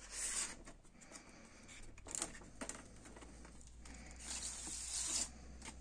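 Cardboard gatefold vinyl record sleeve being handled: panels sliding and rustling under the hands, with a few light clicks and taps. A longer sliding rustle comes about four seconds in.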